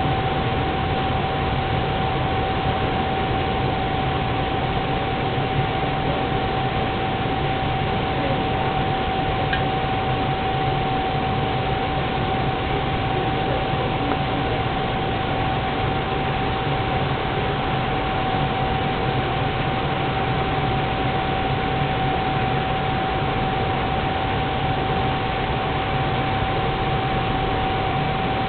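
Propane turkey-fryer burner running steadily under the pot while it heats the frying oil: an even rushing roar with one steady tone through it.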